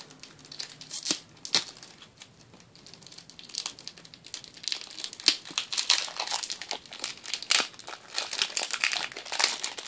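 Plastic wrapper on a block of Sculpey III polymer clay crinkling as it is unwrapped by hand: scattered crackles at first, then busy crinkling from a few seconds in.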